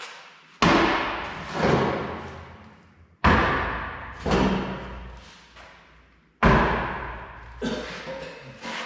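Background music with heavy, booming drum hits in pairs, each hit ringing out slowly for about two seconds.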